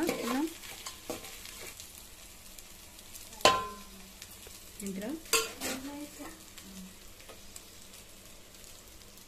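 A steel ladle stirring cooked rice in an aluminium pot, with a soft scraping of rice. The ladle clinks sharply against the pot twice, about three and a half seconds in and again about two seconds later.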